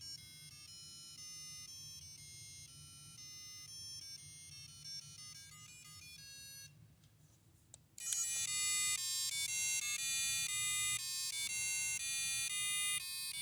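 McDonald's 2001 Tiger Electronics Furby toy playing its electronic beeping tune through its tiny speaker, showing the repaired toy works. The tune is faint at first, breaks off about seven seconds in, then starts again louder.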